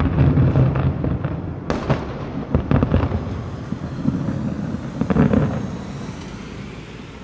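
Aerial fireworks: shells bursting with bangs and dense crackling, with louder bangs about two, three and five seconds in. The noise then dies away to a low rumble.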